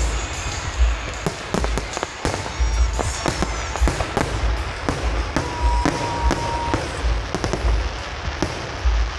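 Fireworks shells bursting in rapid succession: repeated deep booms and sharp cracks, one after another with no gap, with crackling between the bangs.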